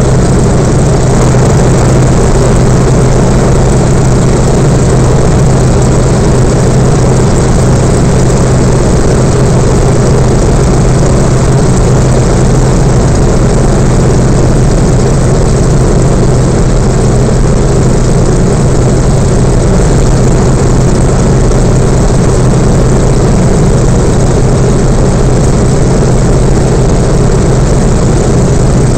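Yak-52's Vedeneyev M-14P nine-cylinder radial engine and propeller droning steadily in flight, heard from inside the closed cockpit. The drone is loud and unchanging, with a strong low hum under it.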